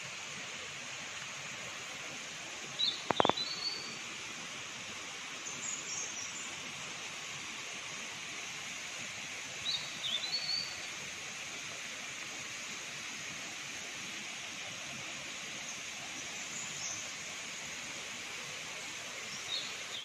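Forest ambience: a steady hiss with a few short bird chirps now and then, and a single sharp click about three seconds in.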